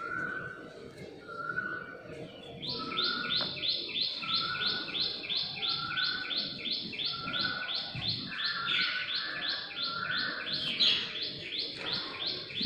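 Birds chirping: a short call repeating about once a second, joined about three seconds in by a fast run of short, high, downward-sweeping chirps, about three a second, that stops just before the end.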